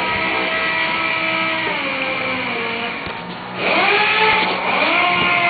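A motor-driven machine running with a steady whine, its pitch sinking in steps and then swinging up and down near the end, as under changing load.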